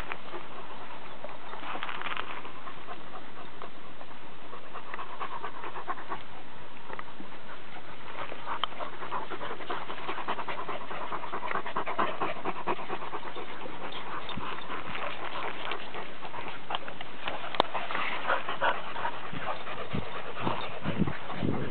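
A dog panting, louder near the end as a long-haired black-and-white dog comes right up close with its tongue out.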